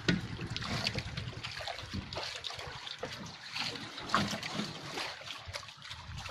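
Water splashing and trickling against the side of an outrigger fishing boat, with scattered small knocks.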